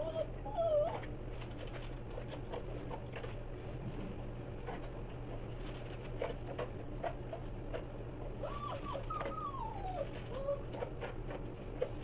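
Basset hound whining in high, wavering cries near the start and again about nine seconds in, over scattered small clicks from a dog eating dry kibble out of a steel bowl. A steady low hum runs underneath.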